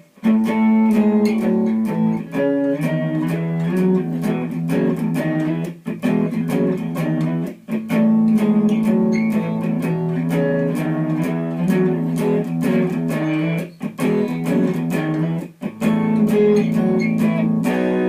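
Guitar riff picked over and over: a low open A rings steadily under an octave shape picked on the A and B strings, with the G string between them muted. The phrase repeats with brief gaps between passes.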